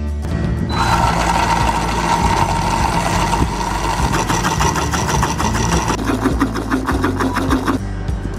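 Electric countertop blender running at speed, its blades chopping pomegranate arils into pulp. The motor starts under a second in and runs steadily, picks up a rapid rattling pulse about halfway through, drops lower in tone, and stops shortly before the end.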